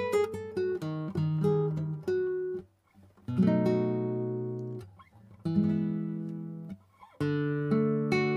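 1980 Japanese-made Matsuoka M-30 nylon-string classical guitar being played: a quick run of plucked notes, a short pause, then two chords each left to ring out, and picking starts again near the end.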